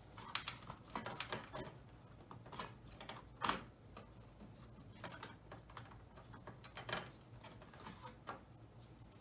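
Scattered small clicks and rustles of a floppy-drive ribbon cable's connector being worked onto its pin header, with hands brushing the drive's metal cover; one louder click about three and a half seconds in.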